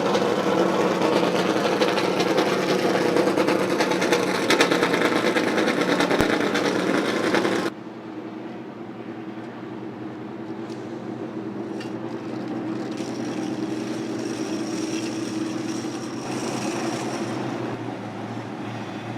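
Race car engines running in the pits, a steady mechanical drone. It cuts off suddenly about eight seconds in and is replaced by a quieter engine running.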